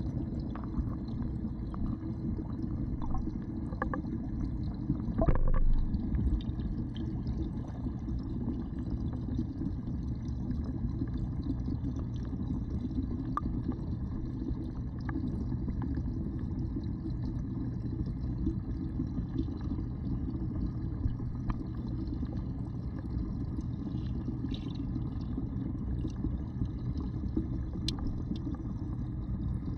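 Steady, muffled rumble of a pond waterfall's churning water heard underwater, through a submerged action camera, with a louder surge about five seconds in.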